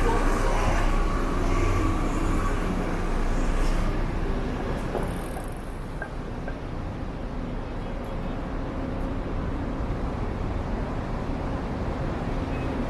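City street traffic: a bus and motor scooters running along the road, heard as a steady rumble of engines and tyres that is louder for the first five seconds or so and then settles lower.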